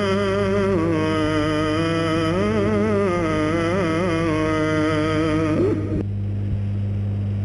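A man's voice chanting a Gospel reading, drawing out one long melismatic vowel whose pitch wavers and turns, ending about five and a half seconds in. A steady low hum runs underneath.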